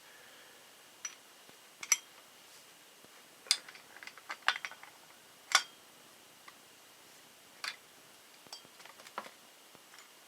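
Scattered, irregular metal clicks and clinks from hand tools working the pulley installer as the pulley is pressed onto the new power steering pump's shaft.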